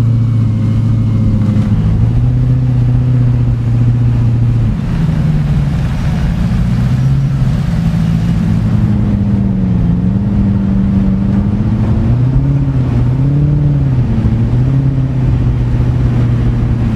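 Lazareth LM847's Maserati 4.7-litre V8 running on the move. It holds a steady note for the first few seconds, then rises and falls with the throttle, with three quick revs near the end.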